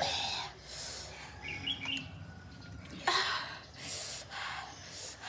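Hissing breaths through an open mouth, several in a row, from a person cooling a mouth burning from very spicy noodles; a short faint high chirp about a second and a half in.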